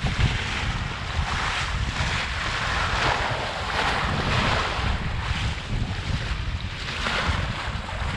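A small sailboat's bow wave rushing and splashing as the hull cuts through the sea, the hiss of the water swelling and fading in surges. Wind buffets the microphone underneath.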